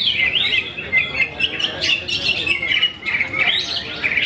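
Oriental magpie-robin singing a fast, continuous warbling song of varied chirps and trills.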